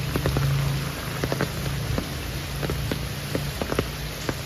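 Rain falling, with many separate drops tapping on a hard surface at uneven intervals, over a steady low hum.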